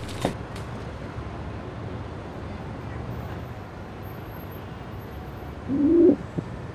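Steady low background hum, then near the end one short pigeon coo that rises and falls in pitch.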